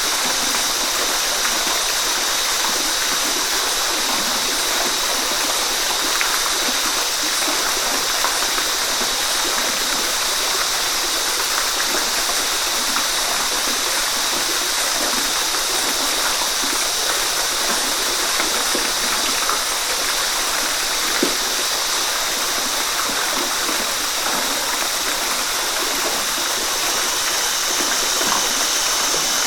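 Steady rain falling on forest foliage, an even hiss and patter with no letup. A steady high-pitched whine sits on top of it throughout.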